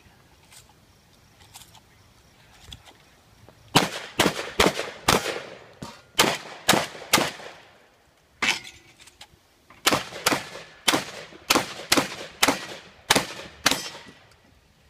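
Shotgun fired in quick strings of shots, about two a second, starting about four seconds in, with short pauses between strings. Each shot trails off in a brief echo.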